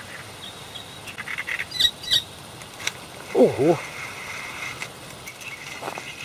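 Birds chirping over a steady faint high insect hum, with a pair of sharp chirps about two seconds in.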